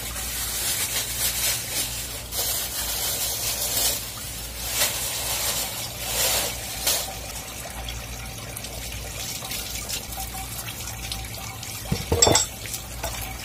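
Water running from a garden hose and splashing onto wet concrete, with a plastic bag being crinkled and handled in swells through the first half. A sharp knock about twelve seconds in.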